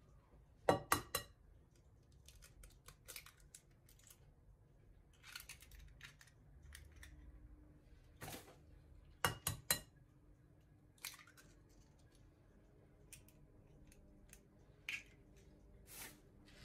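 Two raw eggs cracked open one after the other: each shell is knocked about three times in quick succession with sharp taps, about a second in and again near the middle, with softer clicks and crackles of shell being pulled apart between them.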